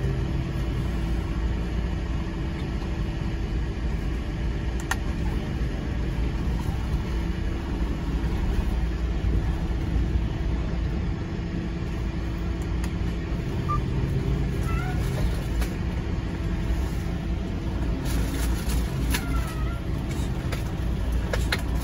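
Truck engine running, heard from inside the cab: a steady low rumble with a steady hum over it.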